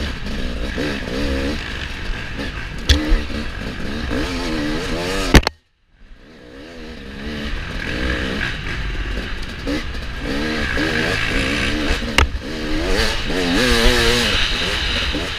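Off-road motorcycle engine revving up and down over rough ground, its pitch rising and falling every second or so, with wind rumble and occasional sharp knocks. A loud knock about five seconds in is followed by a brief cut-out, and the sound fades back in.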